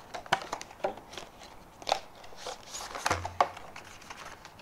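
Product packaging being handled and opened, a clear plastic sleeve and a cardboard box: irregular sharp clicks and crinkles, a few seconds apart.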